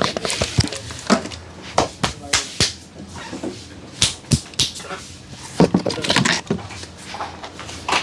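Irregular sharp slaps and smacks of a barber's hands during a head and body massage, a dozen or so strikes at uneven spacing.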